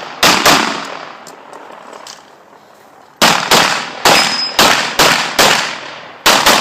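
Open-division race-gun Glock 17 in 9mm firing a course of fire: a quick pair of shots, a pause of nearly three seconds, then about seven rapid shots, each with a short ring-out.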